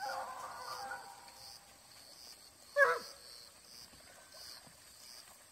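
Hunting dogs baying in the distance: a drawn-out bay in the first second, then a short sharp bark about three seconds in.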